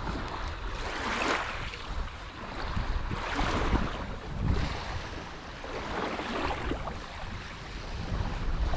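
Small waves washing onto the shore every second or two, with wind rumbling on the microphone.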